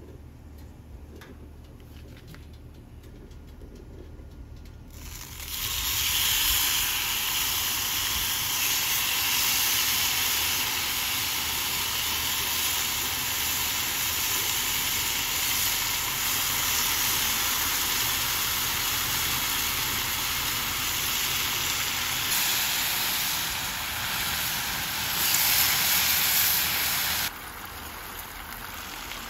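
Marinated kalbi beef short ribs sizzling on a hot Blackstone griddle's flat steel top. It is a loud, steady sizzle that starts about five seconds in and cuts off sharply near the end.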